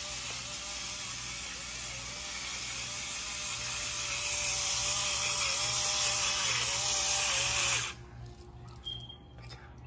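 Electric pepper grinder's small motor running steadily with its cap still on, so no pepper comes out. It gets louder over the last few seconds of running, then stops abruptly about eight seconds in.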